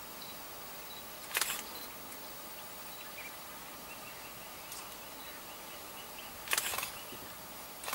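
Faint steady hiss with two brief noisy bursts, about a second in and again near the end, from a mongoose and a cobra fighting in dry leaf litter.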